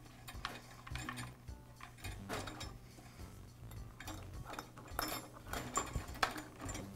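Faint, scattered clicks and taps of a plastic cord clamp and power cord being pressed into the sheet-metal switch housing of a drain auger motor, with the loose wires brushing the housing.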